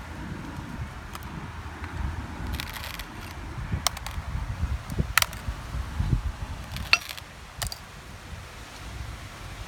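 Plastic keycaps and broken parts of a smashed MacBook keyboard clicking and rattling as they are handled and pried at, with about five sharp clicks over low handling knocks.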